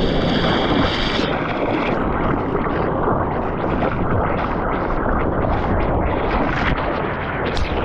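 Steady rush of seawater and wind buffeting the microphone of a surfer's POV camera.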